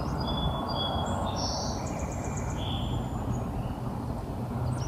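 Songbirds calling: a string of short, high whistled notes and chirps over a steady low background noise.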